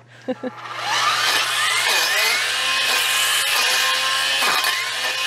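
A handheld power tool's motor spins up about half a second in, its whine rising as it comes up to speed, then runs steadily.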